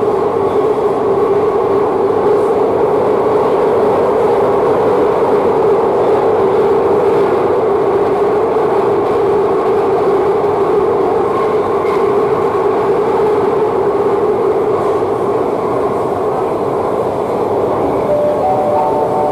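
Madrid Metro train running, heard from inside the carriage: a loud, steady rumble with a constant hum. Near the end a short three-note chime sounds, stepping up in pitch, as the next-station display comes on.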